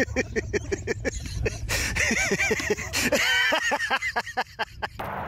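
A person laughing in quick repeated bursts, about six a second, with a short break after a second and a half; the laughter cuts off near the end.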